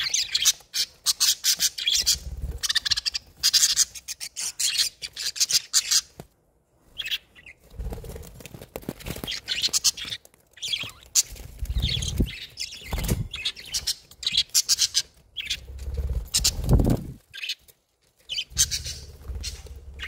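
Young budgerigars chirping and chattering in quick runs of high calls, with short pauses between runs. A few low thumps from the birds moving about come in now and then.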